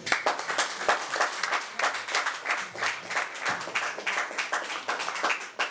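Audience applauding at the end of a song: dense hand clapping that begins at once and thins out near the end.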